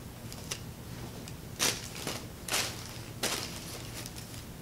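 Cloth dust bags and tissue paper rustling in a cardboard shoe box as the bags are lifted out, three short rustles about a second apart.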